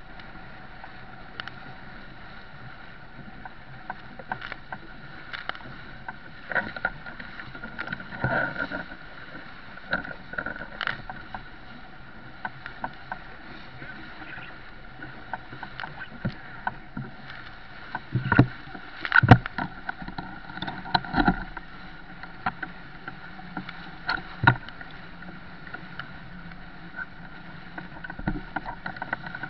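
Sailing yacht driving to windward through rough, choppy water: a steady rush of water and wind along the hull, broken by irregular thuds of waves and spray slamming against the bow. The heaviest slams come in a cluster a little past halfway.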